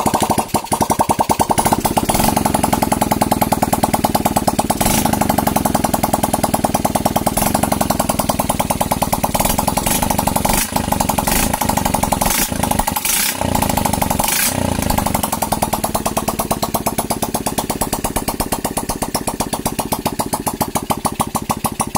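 Yamaha Crypton's small four-stroke single-cylinder engine catching and running with rapid, even firing pulses, with a few brief stumbles around the middle. It runs as a bare engine fired only by its stock CDI, ignition coil and spark plug with no wiring harness, showing that the stator and CDI ignition work.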